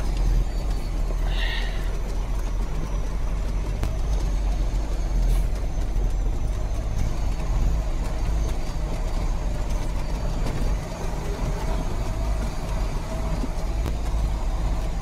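Cab noise of a loaded logging truck driving down a rough, steep gravel road: a steady low rumble of engine and road, with a faint whine running under it and a brief high squeak about a second and a half in.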